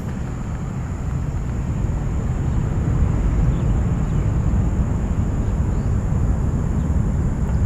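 Jet airliner's engines rumbling as it passes, the sound swelling over the first few seconds and then holding steady.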